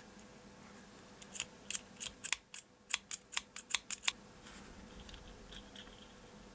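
Sharp plastic clicks from a Sony DSC-W830's lens barrel as its rings are twisted and pressed together by hand. About fifteen come in quick, uneven succession starting about a second in, then fainter scraping.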